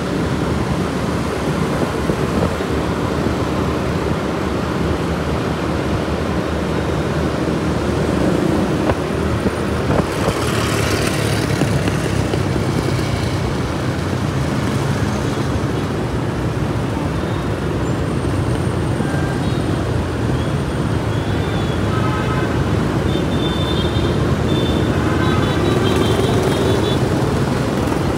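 Dense motor-scooter and car traffic, heard from among the riders on a moving motorbike: a steady rumble of small engines and road noise.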